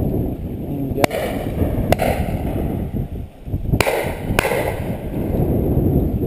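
Four shotgun shots in two quick pairs, about a second in and again near four seconds, each trailing off in a short echo, over steady wind rumble on the microphone.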